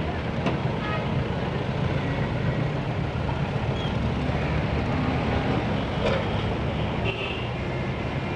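Steady city street traffic noise: motor vehicles running, a low continuous rumble with a few faint brief higher notes.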